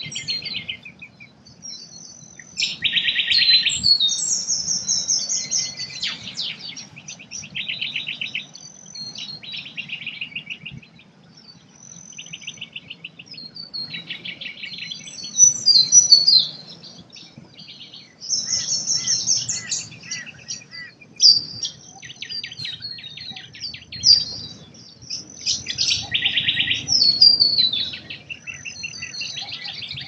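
Several wild birds singing and calling over one another: rapid trills and high chirps in short bursts every couple of seconds, over a faint low rumble.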